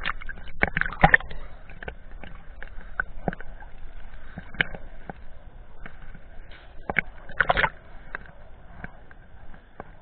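Small sea waves slapping and sloshing against a camera bobbing at the water's surface, with irregular sharp splashes, busiest about a second in and again about seven and a half seconds in.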